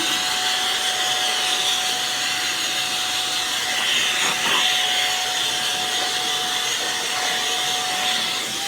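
Small vacuum cleaner running steadily, a rush of air with one high steady whine, used to pull dust away from the printer rather than blowing air into it.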